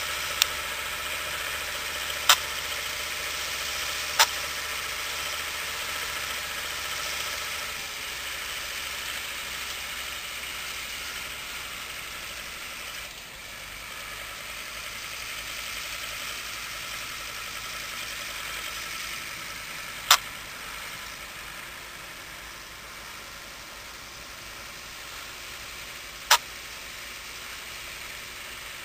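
Same Laser 100 tractor's diesel engine running steadily under load as it pulls a disc plough, slowly fading as it moves away. Five sharp clicks stand out above it, three in the first few seconds and two later.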